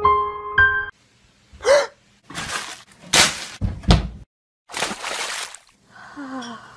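Handfuls of wrapped candy thrown onto a tile floor, heard as a string of short crashing, scattering bursts with a couple of heavy thuds. Before them the last piano notes ring out, and near the end there is a brief voice.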